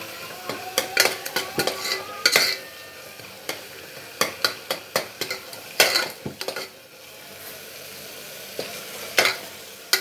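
A ladle stirring and mashing a sautéing onion-tomato and ginger-garlic masala in a pressure cooker, with irregular scrapes and knocks against the pot over a steady sizzle of frying.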